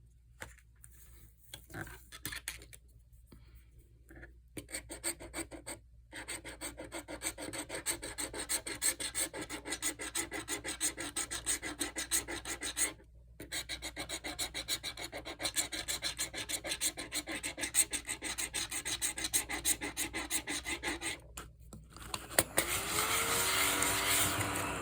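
Scratch-off lottery ticket being scratched: fast repeated rasping strokes across the ticket's coating, with a brief pause midway. Near the end comes a louder, steadier rub.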